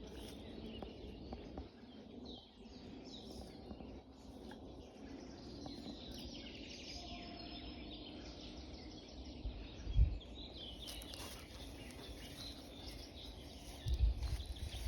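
Small birds chirping and singing in many short overlapping calls, over a low outdoor background, with a low thud about ten seconds in and low rumbling on the microphone near the end.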